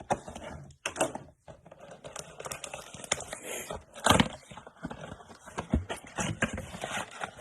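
Trading cards and their cardboard and foil packaging being handled on a table: an irregular string of clicks, taps and scrapes, with one louder crack about four seconds in.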